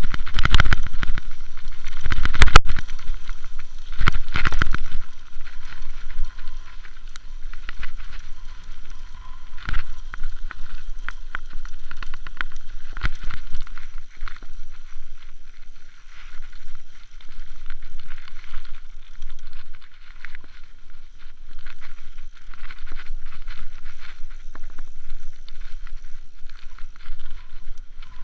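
Mountain bike riding over bumpy grass, its parts rattling and knocking, with wind rumbling on the microphone. The knocks are loudest and densest in the first few seconds, then settle into a steadier run of lighter rattles.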